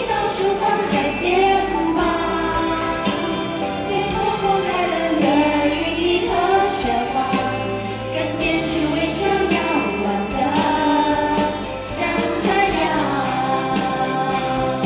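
A group of women singing a Mandarin pop song together into microphones, over instrumental accompaniment.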